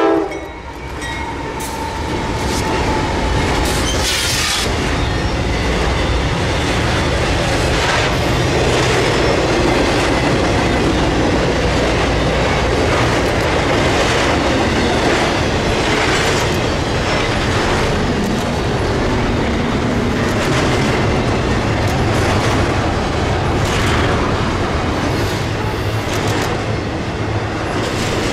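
Norfolk Southern intermodal freight train passing close by: three GE diesel locomotives go by first, then trailers on flatcars and double-stack container cars roll past. There is steady wheel-on-rail noise and repeated clacks of wheels over rail joints. The last of the locomotive horn fades in the first second or two.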